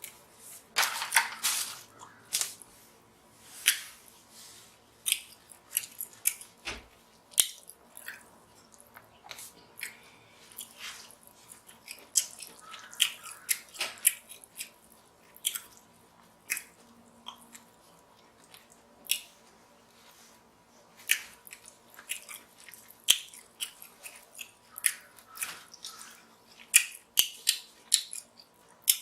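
Close-miked eating of king crab meat: wet chewing and lip-smacking, heard as a string of short, sharp smacks and clicks at irregular intervals.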